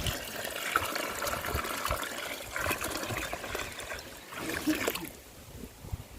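Water being poured into pig feed in a container, a trickling, splashing pour that tails off about five seconds in.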